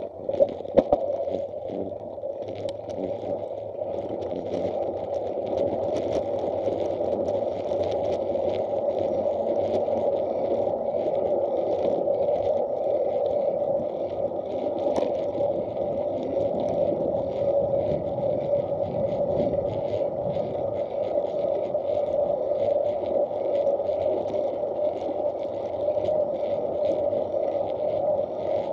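Steady rolling noise of wheels on an asphalt path, picked up by an action camera inside its case, with small rattles and ticks throughout and a few sharp knocks about half a second in.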